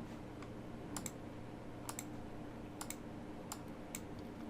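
Computer mouse button clicks, most coming in quick pairs of press and release about once a second, over a faint steady hum from the computer.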